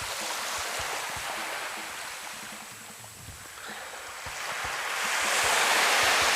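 Small waves washing on a shoreline: a steady wash that eases off in the middle and swells louder near the end.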